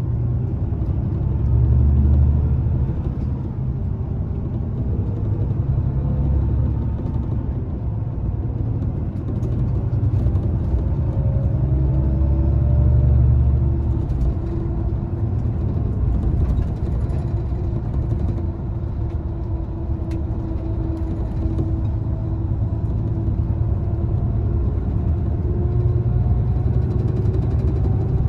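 Cabin noise inside a Volvo B11RT coach at road speed: its rear-mounted 11-litre six-cylinder diesel drones low under steady tyre and road noise, swelling louder twice. A faint whine drifts slowly up and down in pitch.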